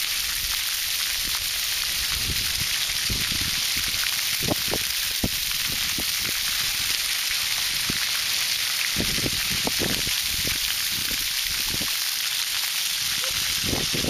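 Splash pad fountain jets spraying water onto wet pavement: a steady hiss, with a few faint taps mixed in.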